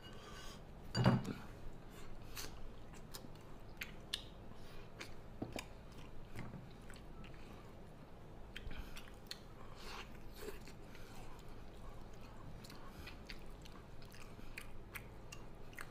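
A man chewing braised pig's trotter with his mouth open-lipped, giving many small wet smacks and clicks as he works the sticky skin and meat. There is one louder mouth sound about a second in.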